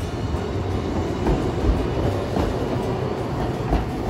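Hiroshima Electric Railway streetcar running on street track, a steady rumble with a few low thumps from the wheels on the rails.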